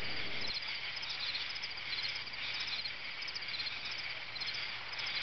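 Chirping insects in an outdoor ambience: clusters of short, high chirps repeating about once or twice a second over a faint steady hiss.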